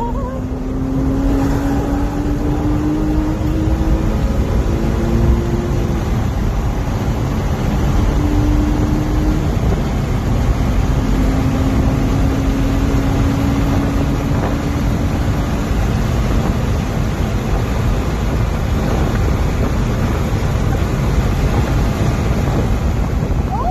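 Race car engine running hard, heard from inside the cabin, its pitch climbing in long pulls three times under heavy road and wind noise.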